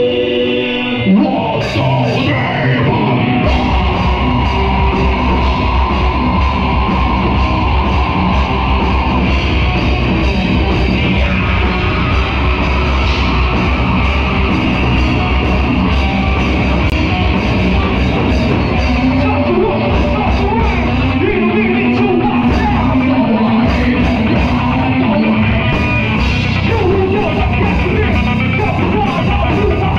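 Live rock band playing loud heavy music, with distorted electric guitars, bass, drums and shouted vocals. A held opening chord breaks off about a second in, and the full band kicks in heavily at about three and a half seconds.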